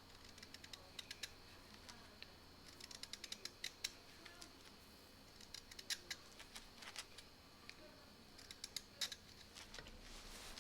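Carving knife shaving ginkgo wood: faint, crisp slicing cuts, many short strokes coming in irregular clusters.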